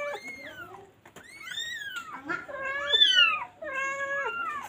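Mother cat meowing repeatedly: about five drawn-out meows that rise and fall in pitch, some overlapping, as she calls for her newborn kittens.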